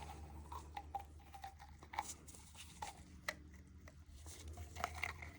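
Faint scattered clicks and light scrapes of a threaded gas pipe fitting being handled and lined up on its threads, over a low steady hum.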